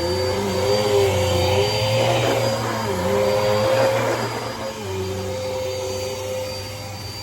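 Dirt Devil Breeze cyclonic vacuum cleaner running, its motor pitch dipping and recovering several times. It gets quieter about five seconds in.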